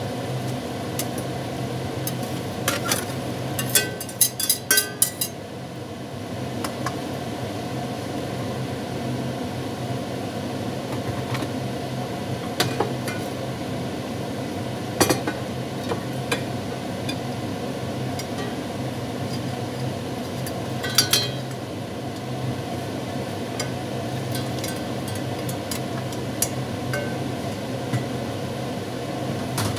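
Cooking utensils clinking and clattering against a pot and a wok during stir-frying, with a quick run of clinks about four seconds in and a few single clinks later, over a steady low hum.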